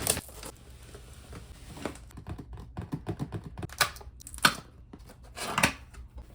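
A cardboard box being opened and its contents handled: scattered taps, knocks and light rustling, with a few sharper clicks about two, four and five and a half seconds in.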